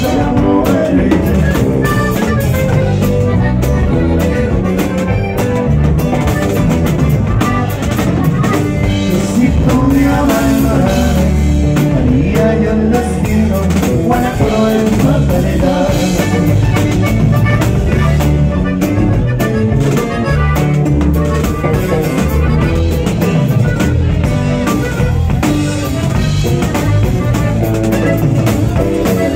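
Live norteño band music: a Jomavi button accordion playing the lead over a drum kit, loud and steady.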